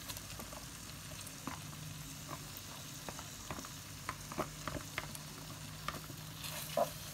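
A frying pan of garlic and cooking cream sizzling as diced raw chicken is tipped into it, with scattered light clicks and taps as the pieces and the bowl meet the pan.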